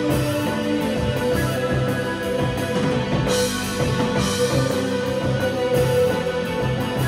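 Live band playing loud: electric guitars held over a drum kit, with a cymbal crash about three seconds in.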